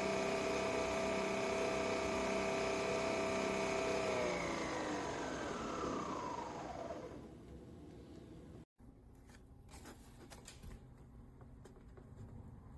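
Nespresso Vertuo Pop+ coffee machine's brewing motor whirring steadily with a high whine, then winding down in pitch about four seconds in as the brew cycle ends. Faint mechanical clicks follow.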